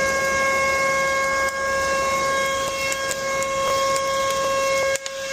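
Vacuum cleaner motor running steadily with an even, high whine over a rush of air, briefly dipping near the end.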